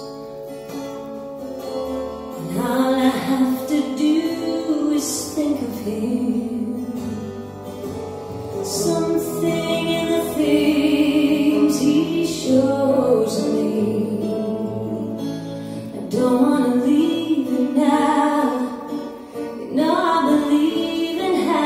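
A song with singing and guitar playing back through a pair of Acoustic Research AR-3 loudspeakers driven by a Grundig SV80 amplifier, heard in the room.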